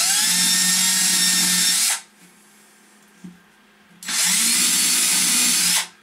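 Cordless drill pre-drilling pilot holes with a small bit into a wooden panel: two runs of about two seconds each, the motor's whine rising as it spins up at the start of each.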